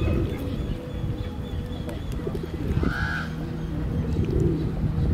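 A single arched bird call about three seconds in, rising then falling, over a constant low rumbling noise.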